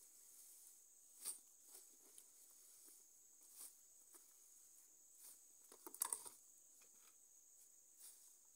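Faint rustling and light taps of leafy akeyo greens being handled in a plastic basin and basket, loudest in a short cluster about six seconds in, over a faint steady high-pitched whine.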